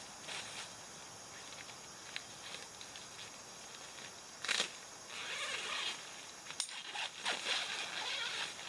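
Dry fallen leaves crunching underfoot and ripstop nylon tent fabric rustling as it is handled, with louder crackles and swishes in the second half.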